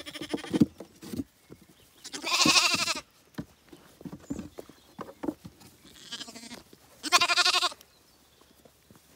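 Zwartbles lambs bleating: two long, loud bleats about two and seven seconds in, with shorter, fainter bleats around them and light knocks in between.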